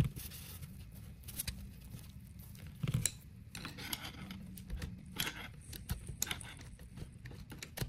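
Two steel pry bars levering a ball bearing off a gear shaft, worked evenly from side to side. The result is scattered light metal clicks and scrapes, with a soft knock about three seconds in.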